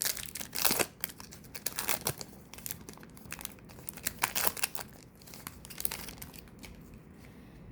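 Wrapper of a Bowman baseball card pack crinkling and tearing as it is opened: a dense run of crackles that thins out after a couple of seconds and fades near the end.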